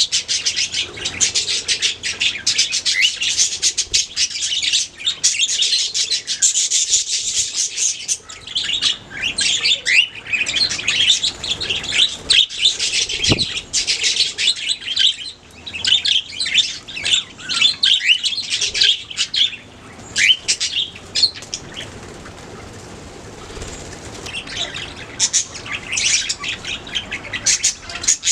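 Budgerigars chirping and warbling rapidly, several birds together, with a short lull past the two-thirds mark before the chatter picks up again.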